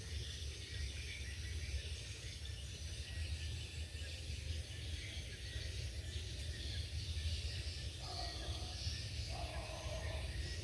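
Rain falling steadily on a tin roof: an even hiss over a constant low rumble.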